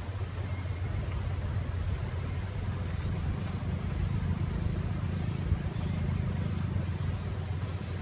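Wind blowing through the forest trees and buffeting the microphone: a steady low rumble that swells and eases, with an even rustling hiss above it.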